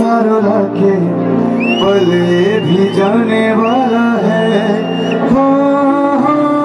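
Live music: a man singing into a microphone over sustained keyboard chords, with two long high held notes in the melody.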